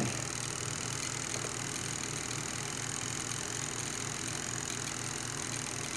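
Twin-tub washing machine spin dryer motor, a capacitor-run motor, running without load on a test bench: a steady hum with a slight regular pulsing.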